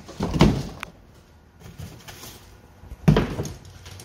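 Shipping box for a steel bumper being opened and handled: a dull knock about half a second in, a louder thump about three seconds in, and light rustling between them.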